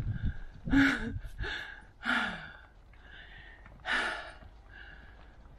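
A person's heavy breathing close to the microphone: four loud, separate exhales and gasps, one ending in a short voiced sigh that falls in pitch about two seconds in.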